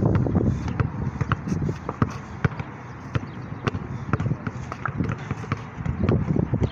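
Basketball dribbled on asphalt: sharp, short bounces at about two to three a second.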